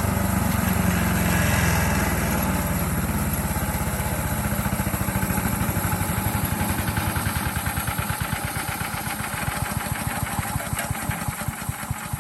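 DR Premier 300 chipper's freshly replaced small gas engine running, then slowing down: its steady running breaks into separate firing beats that get slower and fainter over the last several seconds as the engine and chipper wind down.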